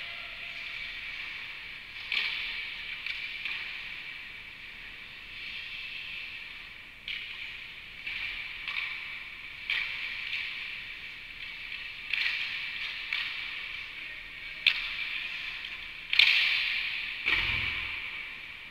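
Ice rink sounds in an echoing arena: skates scraping the ice and hockey sticks and pucks clacking, about ten sharp hits, each ringing out and fading. There is a heavier, deeper thump near the end.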